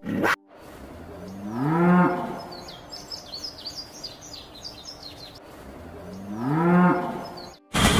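Yak calling twice, a low moo-like call that rises in pitch and then drops, about two seconds in and again near the end. Birds chirp in between, and a brief snarl from a cougar is cut off at the very start.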